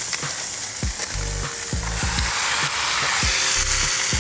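Ground-beef smash burger patty sizzling hard on a very hot Blackstone griddle as it is pressed flat under parchment paper. A beat of background music runs underneath.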